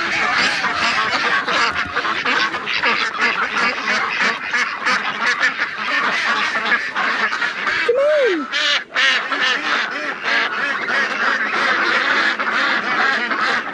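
A flock of domestic ducks (Indian Runner and crested ducks) calling continuously: many short quacks overlap without a break, and one louder call falls in pitch about eight seconds in.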